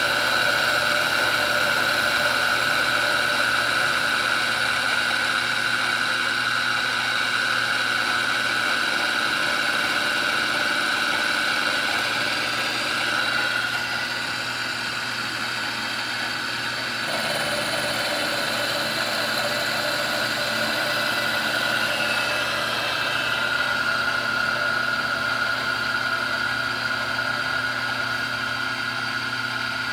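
Milling machine running with its cutter taking light passes in the gun's guide rod housing, a steady machine tone throughout. The sound drops a little about 13 seconds in and shifts again about 17 seconds in, as the cut changes.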